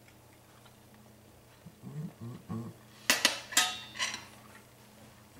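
A short low murmur from someone tasting food, then a quick clatter of several sharp metallic clinks lasting about a second, as kitchen utensils or a pan are handled on the counter.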